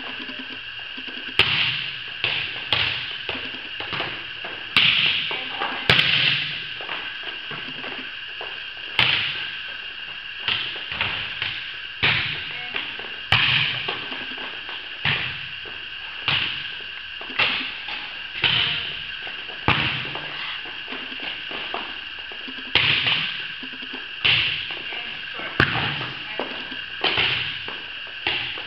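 A volleyball being passed back and forth: sharp hand and forearm contacts on the ball about every second or so, each echoing in a metal-roofed gym, over a steady high hum.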